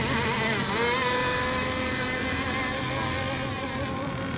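Several radio-controlled racing boats running on the water with a high buzzing whine, milling around the course before the race start. The pitch wavers and rises slightly about a second in.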